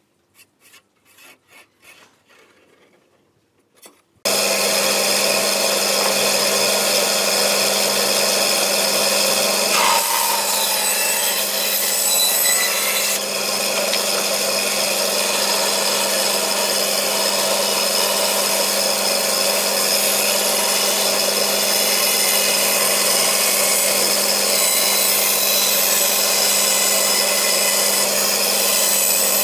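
A few soft pencil strokes, then about four seconds in a bandsaw comes in suddenly and runs steadily, its blade cutting a curve through a wooden board over a constant motor hum.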